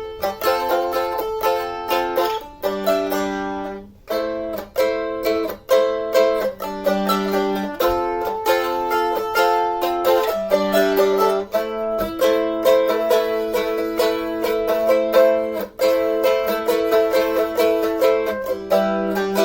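A handmade Les Paul-style mandolin with mango and teak tonewoods being played: a steady stream of quickly plucked notes and chords.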